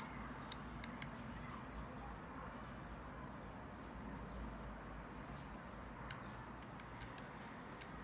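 Faint steady background hum with a few light, sharp clicks scattered through it, most of them in the first second and near the end.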